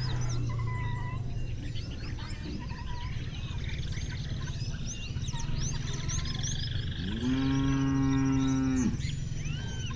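Cattle mooing: a low call at the start, then one long loud moo from about seven seconds in to nearly nine. Many small birds chirp throughout.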